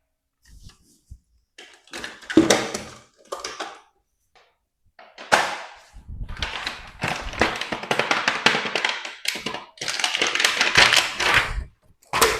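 Toy action figures and their packaging being handled: rustling and crinkling in irregular bursts, with light taps and knocks.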